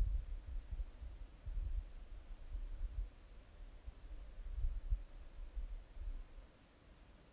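Wind buffeting the microphone in uneven low gusts that die down near the end, with a few faint, high bird chirps and whistles.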